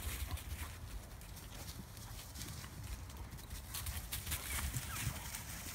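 Dogs running and playing over dry leaf litter: paws crunching and rustling the leaves in a quick, irregular patter.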